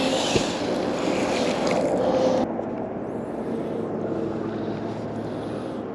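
Steady outdoor rushing noise with a faint low hum, and a single sharp knock about half a second in. The noise drops abruptly and becomes duller about two and a half seconds in.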